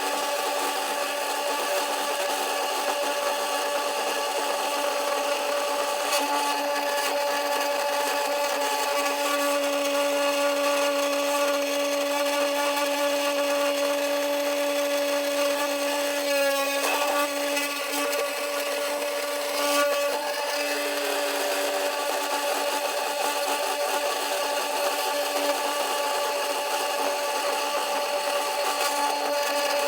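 CNC 3018 Pro router milling an aluminium plate: a steady whine from the spindle over the hiss of the end mill cutting, with a brief wavering change in tone about halfway through.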